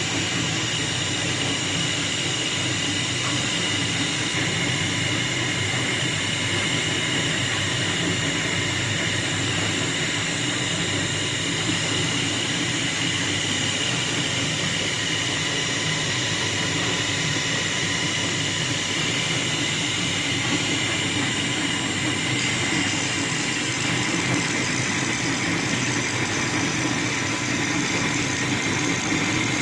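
Small electric wood lathe running steadily with a hum and a steady high whine, while sandpaper is held against the spinning wooden bowl.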